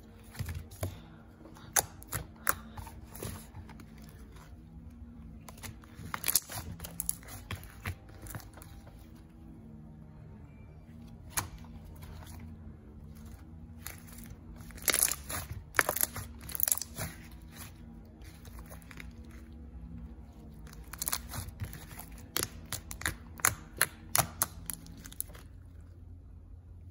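Hands squishing, stretching and folding baby blue slime, giving clusters of sharp clicks and pops with quieter stretches between.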